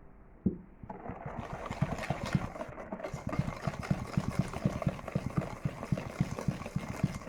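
Electric hand mixer with its whisk attachment: a sharp click about half a second in, then the motor starts about a second in and runs steadily, beating eggs, sugar and oil, with a regular rapid knocking of about four a second.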